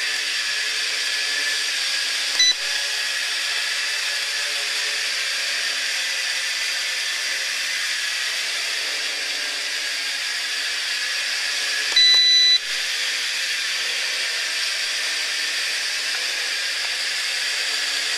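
Sharper Image DX-4 quadcopter's motors and propellers whining steadily in flight. Two electronic beeps cut in, a very short one about two seconds in and a longer, louder one about twelve seconds in.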